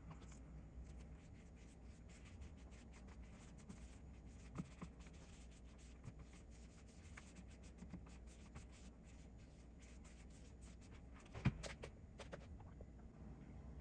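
Faint scratching and rubbing of a brush and cloth working finish over the wood of a small carved tray, in many short strokes. A sharp knock near the end, with a smaller one earlier.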